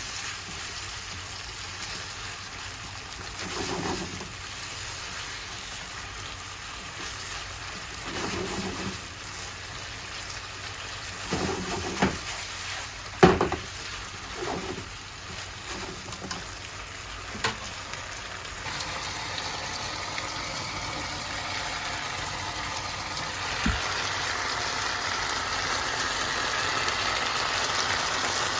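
Food sizzling in a frying pan, with a few sharp clicks of a utensil against the pan. The sizzle grows louder about two-thirds of the way through.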